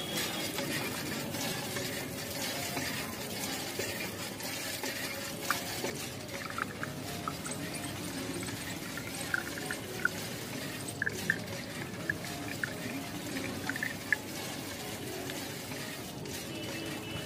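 Water flowing from the spout of a miniature toy hand pump as its lever is worked, a steady trickling hiss with scattered small drips and ticks.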